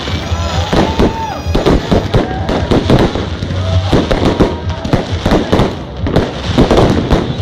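Aerial fireworks display: a dense, continuous run of shell bursts and crackling bangs, several a second.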